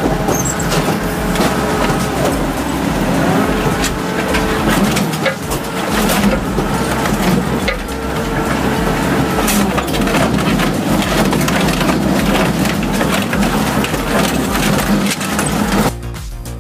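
Tana Shark industrial shredder tearing through rubber tyres: a continuous dense grinding and crunching, broken by frequent cracks and snaps. It cuts off abruptly near the end, giving way to music.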